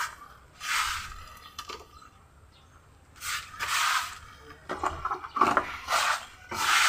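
Hands scooping and pressing potting soil into a plastic pot: several short rustling scrapes, each about half a second, with pauses between them.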